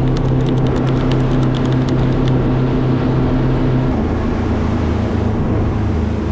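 Boat engine running under power, its steady note dropping to a lower pitch about four seconds in as it throttles back. A run of sharp ticks sounds in the first two seconds.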